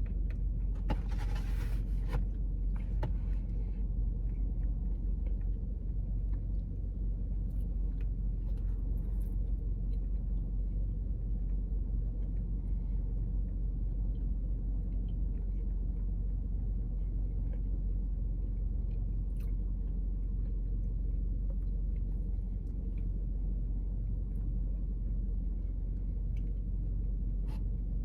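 Steady low rumble, with a brief rustle about a second in and a few faint clicks.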